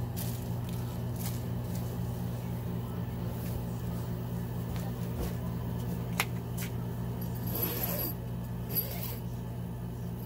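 Vacuum cleaner motor running steadily with a low hum. A sharp click comes about six seconds in, and a short rustle follows around eight seconds.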